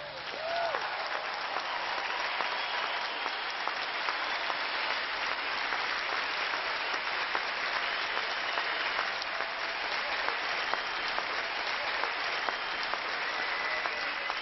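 A large stadium crowd applauding steadily, a dense patter of clapping, with a brief cheer about a second in.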